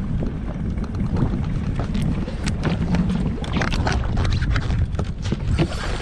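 Wind buffeting the microphone over a steady low rumble on a small inflatable fishing boat at sea. Irregular knocks and clicks come thicker in the second half.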